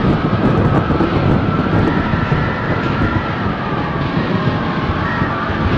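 Old-film tornado sound effect: a continuous rushing wind rumble with a sustained, slightly wavering whistling whine above it.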